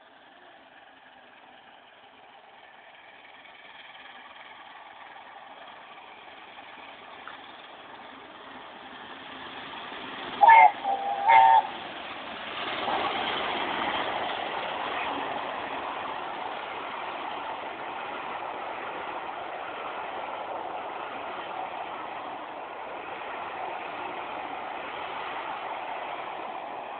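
Steam locomotive Tornado, a Peppercorn A1 4-6-2, approaching and running through with its train: a rumble that grows louder, two short whistle blasts about ten seconds in, then the loud, steady noise of the engine and coaches going by.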